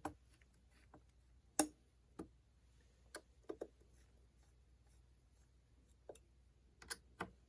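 Small, sharp clicks and taps of a hex driver and screw hardware being worked by hand, spaced irregularly, the sharpest about one and a half seconds in.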